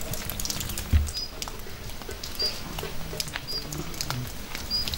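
Scattered crackles and pops from outdoor cooking, with a short high chirp about once a second and one low thump about a second in.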